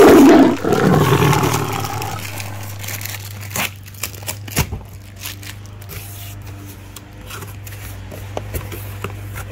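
A packing-slip envelope crumpling and tearing as it is peeled off a cardboard shipping box, loudest in the first two seconds. Then scattered scrapes and taps of the cardboard box being turned and its flaps opened.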